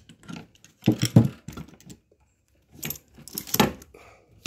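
Metal air tools clinking and knocking against each other and the drawer as they are picked up and set back down in a toolbox drawer, in two short clusters of clatter: about a second in and again about three seconds in.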